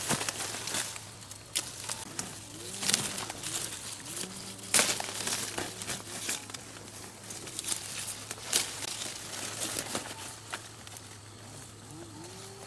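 Orange-tree leaves and branches rustling with sharp clicks as fruit is picked by hand. A bird calls in the background with short low, curved notes several times.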